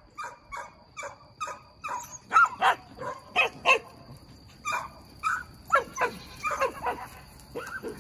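A dog barking over and over in short, excited barks, about two a second, with a brief pause midway.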